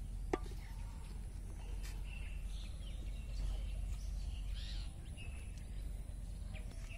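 Outdoor ambience: a steady low rumble with faint bird chirps through the middle, and one sharp click just after the start.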